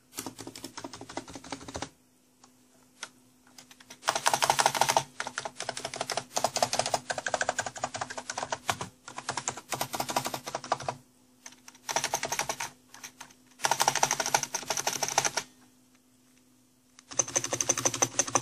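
RC930 keyboard with 55 g switches typed on in fast runs of clicking keystrokes, stopping and starting several times, showing the noise of its stabilizers. A faint steady hum lies underneath.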